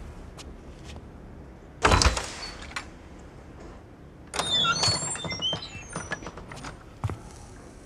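Objects being handled at a metal shelving unit: a heavy thump about two seconds in, then a clatter of rattling clicks and high metallic squeaks and scrapes lasting about a second.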